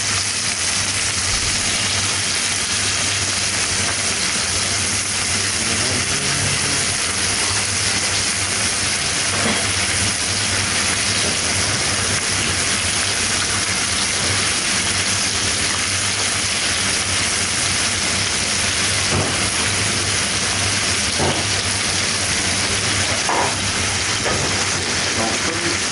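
Frog legs frying in foaming butter in a black steel pan: a steady sizzle as they brown on their second side, with a few faint taps.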